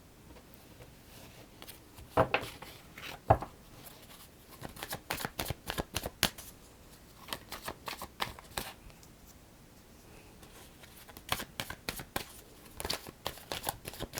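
Tarot cards being shuffled by hand: spells of quick papery clicks, with two louder knocks about two and three seconds in and a brief lull before the shuffling starts again.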